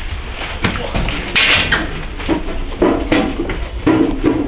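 Knocks, dull thuds and a short rustle of belongings being handled and passed out through a window, with several bumps close together in the last second and a half.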